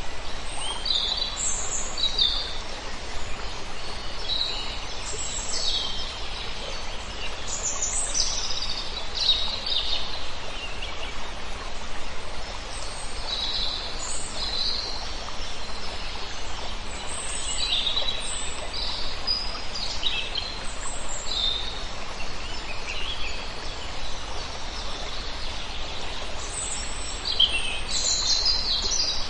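Several songbirds chirping and calling in short high phrases, over a steady rush of flowing water.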